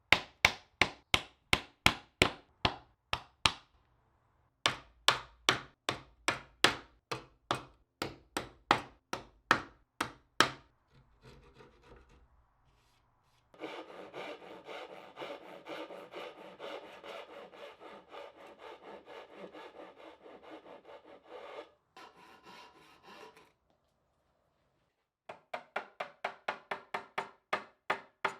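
Hand tools working wood: rhythmic strokes, about four a second at first and then about two a second, then some eight seconds of continuous rubbing, with strokes starting again near the end.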